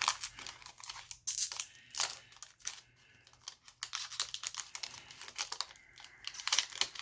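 A foil trading-card booster pack being torn open and its wrapper crinkled: irregular crackling and tearing that eases briefly about halfway through.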